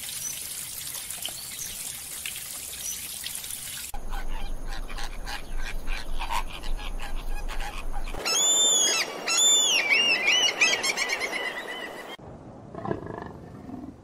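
Stream water running over rocks, then a stretch of rapid clicks, then a flock of flamingos honking, loud calls that rise and fall in pitch. Near the end, a leopard gives a short growl.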